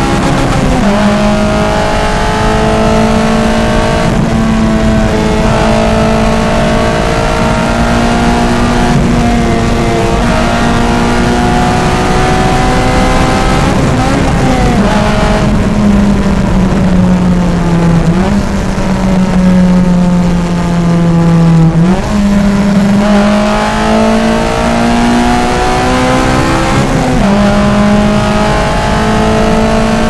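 Honda Civic Si's K20 2.0-litre naturally aspirated four-cylinder engine heard from inside the cabin, pulling at fairly steady revs that creep up slowly, with several sudden steps in pitch as gears are changed.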